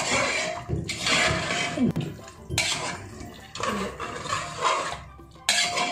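A metal spoon stirring and scraping thick mutton curry around an aluminium pressure cooker pot, in a run of strokes about a second long.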